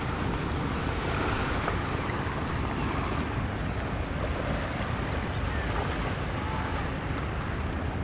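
Steady wash of surf on the beach, with a low steady rumble underneath.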